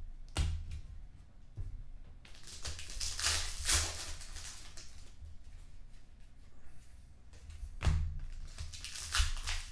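Foil wrapper of a Panini Contenders hockey card pack crinkling and tearing open, a hissy rustle lasting about two seconds that starts a couple of seconds in. Around it are a few sharp clicks and taps of the cards and packs being handled.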